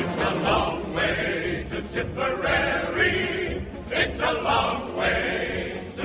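Background music: a choir singing a First World War-era marching song over instrumental accompaniment.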